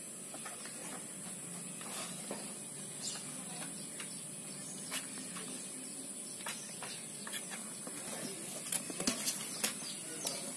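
Kittens pawing and clawing at a cardboard box: scattered light scratches and clicks of claws on cardboard, with a quick run of sharper clicks about eight to ten seconds in as they grapple at the box. A steady high hiss lies under it.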